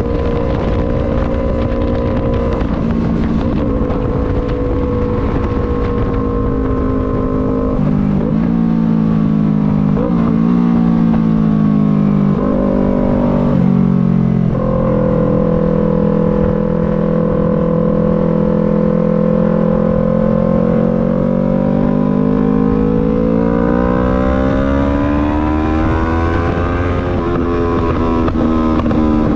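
Yamaha MT-03 motorcycle engine running under way, its note holding steady for long stretches. The pitch drops about a quarter of the way in, changes several times in quick succession near the middle, then climbs steadily as the bike accelerates and eases off slightly near the end.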